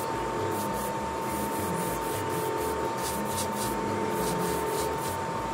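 Airbrush spraying paint: a steady hiss, with a steady thin whine under it.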